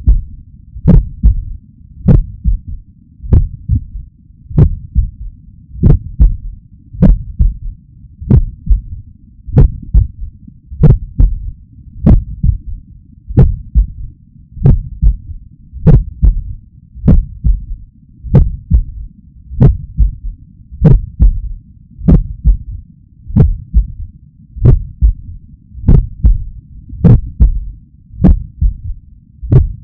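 Human heartbeat heard through a stethoscope: slow, even beats at about 50 a minute, each a cluster of low thuds with a sharp click. The beat carries a third heart sound (S3) just after the second sound, a gallop usually associated with heart failure but sometimes normal in people under 40 and in trained athletes, which is what the owner hopes it is.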